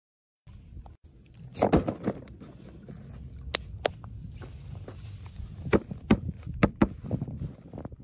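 Scattered crunches and knocks of footsteps and handling on stony ground, in a cluster about a second and a half in and another in the second half, over a steady low rumble.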